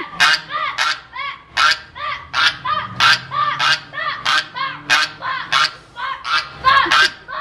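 Goose honking over and over in a two-part rhythm. Loud, harsh-edged honks alternate with softer, bending calls, with a loud honk coming roughly every three-quarters of a second.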